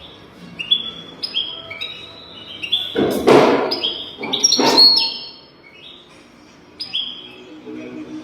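European goldfinch singing: quick twittering phrases of short falling notes, broken about three seconds in by two loud, harsh rasping notes.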